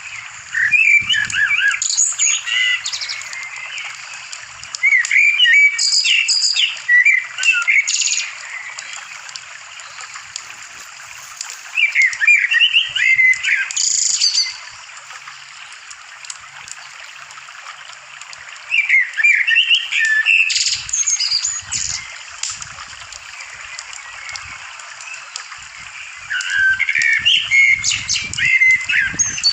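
Bird song in five short bouts of quick, varied chirps and warbles, each two to three seconds long, with pauses of several seconds between them, over a steady background hiss.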